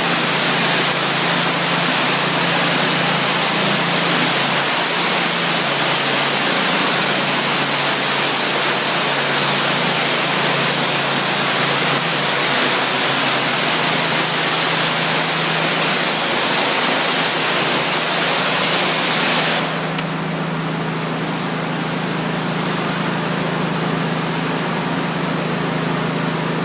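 Pressure washer spraying, a loud steady hiss over the steady hum of its engine and pump. About three-quarters of the way through, the spray cuts off suddenly and the engine keeps running.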